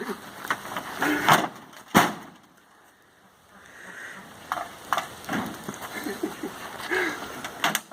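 Scattered knocks and thumps. The sharpest comes about two seconds in, followed by about a second of near quiet, then a run of lighter knocks.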